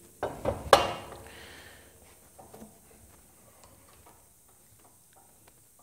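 Aluminium rip fence of a Martin sliding table saw being handled on its rail: a few sharp metal knocks in the first second, then faint ticks and clicks.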